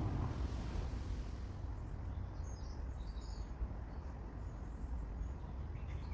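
Outdoor ambience: a steady low rumble with a few faint bird chirps about two to three and a half seconds in.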